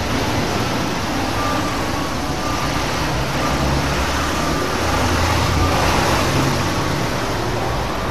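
Steady background noise with a low, uneven rumble that swells slightly around the middle, and faint short high tones that come and go.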